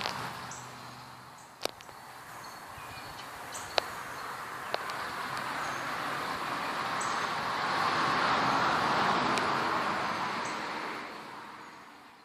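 Outdoor ambience: a steady rushing noise with short, high chirps every second or two, likely birds, and a few sharp clicks. The whole thing swells and then fades out near the end.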